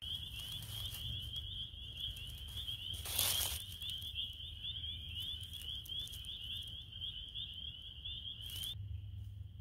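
A high, steady trilling call from a calling animal, insect or frog, that cuts off suddenly shortly before the end, over a low steady rumble. A brief rustling noise about three seconds in is the loudest moment.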